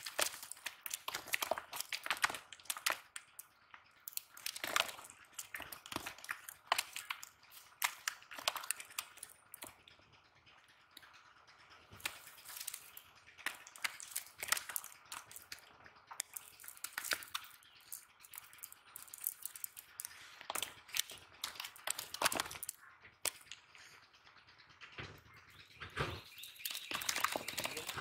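Irregular rustling and crackling clicks from a cast net's mesh and the leaves and debris caught in it being handled and shaken out by hand, with a denser stretch of rustling near the end.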